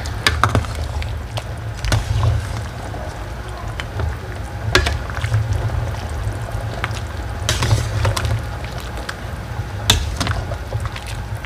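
Metal ladle and spatula stirring a large aluminium pot of simmering chicken soup, with a sharp knock or scrape against the pot every two or three seconds over a steady low rumble.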